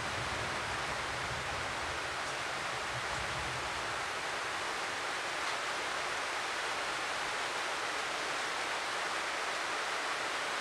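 Steady, even rushing hiss, with a low hum underneath that fades out about halfway through.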